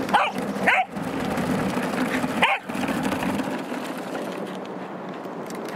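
Welsh corgi barking three times in short, sharp barks. Under the barks an RC car's motor runs with a steady hum that fades out about three and a half seconds in as the car stops.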